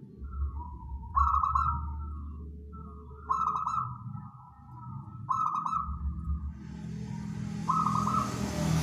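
Local zebra dove (perkutut) cooing: four short, trilled coo phrases about two seconds apart, over a steady low rumble. A rushing noise builds near the end.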